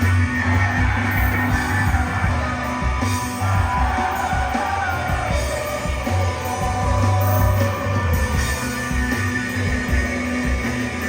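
A rock band playing live, with held bass notes under dense guitars and a voice singing.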